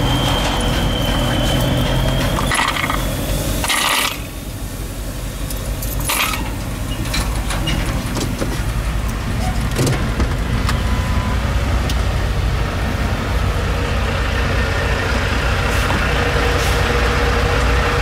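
Pickup truck engine running, heard from inside the cab, with short rustles and clatter of things being handled at the console and a steady high tone for the first few seconds. The engine builds toward the end as the truck pulls away.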